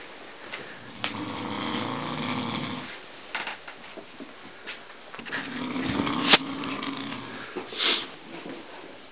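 A sleeping man snoring heavily: two long snores, the first about a second in and the second around five seconds in, with a sharp click during the second snore and a short loud burst of breath near the end.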